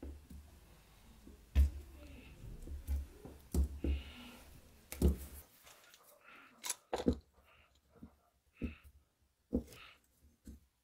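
Scattered knocks and clicks of hand work at a wooden bench: wooden handle scales being pressed onto a knife tang's pins, then a metal bar clamp being set and tightened on the handle.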